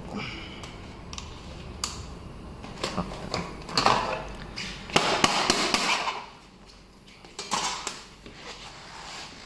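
Hard plastic body panel of an electric scooter being worked loose and pulled off by hand, with scattered clicks and knocks and two louder scraping, rattling stretches about four seconds in and from five to six seconds in.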